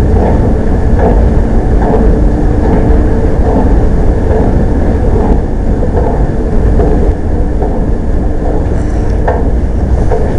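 Otis escalator running downward, heard while riding on it: a steady low rumble with a hum and faint regular clicks as the steps travel.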